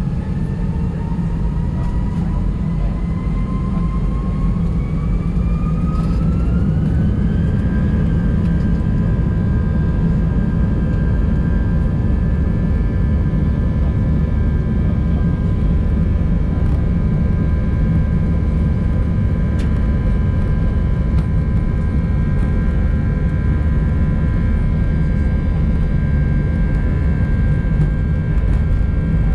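Airbus A319 jet engines heard from inside the cabin, spooling up to takeoff thrust: a whine rises in pitch for about seven seconds and then holds steady over a loud rumble.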